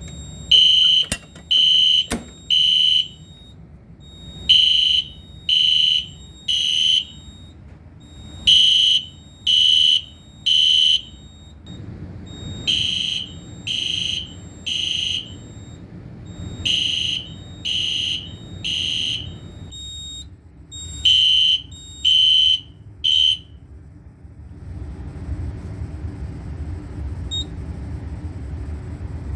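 Fire alarm horn strobe sounding the temporal code-3 pattern on its low-volume setting: six rounds of three high-pitched screeching blasts about a second apart, each round followed by a short pause, stopping about 23 seconds in. A couple of clicks come near the start.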